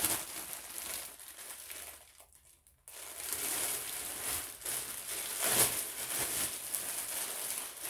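Clear plastic wrapping crinkling and rustling as an item is handled and pulled from it, with a short pause about two seconds in.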